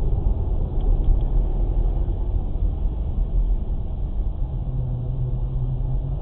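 Steady low road and engine rumble of a moving car, heard from inside the cabin. A low steady drone joins near the end.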